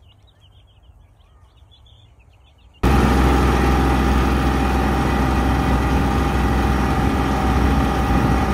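Broiler chicks peeping faintly, many short chirps, for about the first three seconds. Then a sudden cut to a compact tractor's engine running loudly and steadily, heard from the driver's seat while driving across a tilled field.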